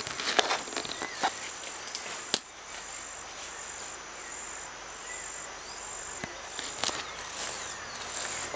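Steady high-pitched drone of insects, with several sharp clicks and knocks in the first two and a half seconds and another pair about seven seconds in.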